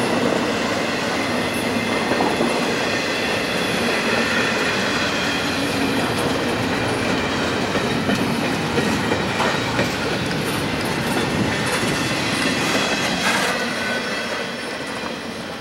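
Norfolk Southern intermodal freight train's well cars, loaded with trailers and stacked containers, rolling past at speed with a steady rumble, clickety-clack and a high steady wheel squeal. The sound begins to fade near the end as the last car passes.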